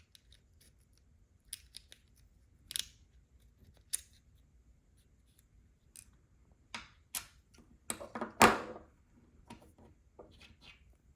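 Small sharp clicks and taps of plastic and metal as an opened car key fob and its CR2032 coin-cell battery are handled, scattered at first and coming thicker in the second half, the loudest about eight seconds in.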